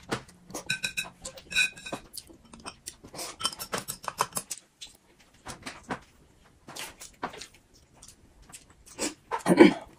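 Close-up eating sounds: chewing and slurping, with chopsticks clicking against bowls and plates. A few brief squeaks come in the first two seconds, and the loudest sound is a short burst near the end.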